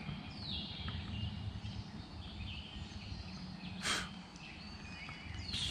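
Birds chirping over a steady low outdoor rumble, with one sharp click about four seconds in.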